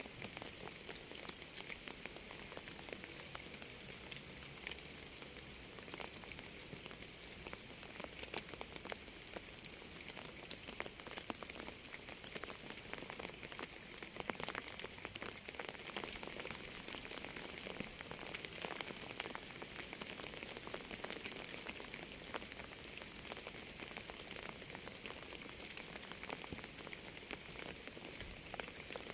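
Steady rainfall: a constant hiss with many separate drops ticking through it, unchanging throughout.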